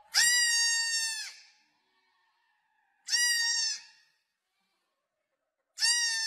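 Goat kid bleating three times in high-pitched calls: a long call of over a second at the start, a shorter one about three seconds in, and another near the end.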